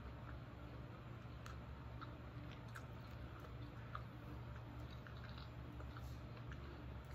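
A person chewing a snack bite, with small irregular mouth clicks, over a steady low hum in the room.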